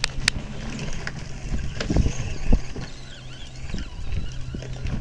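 Electric motor and gearbox of a child's Power Wheels ride-on ATV running with a steady low hum, with scattered knocks as the wheels roll over sticks and dirt.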